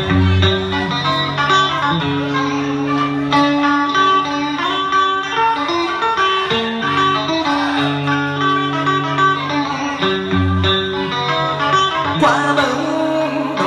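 Live band music in an instrumental passage: a plucked-string melody over sustained bass notes, with a singer coming in near the end.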